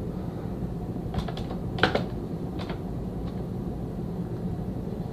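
A handful of sharp, scattered plastic clicks from a new wireless keyboard and mouse being handled. The loudest click comes about two seconds in.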